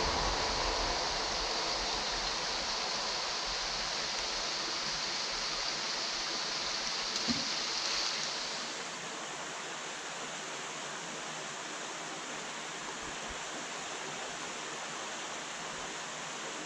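Steady rushing of water pouring over a small canal weir, with a passing train fading away at the start.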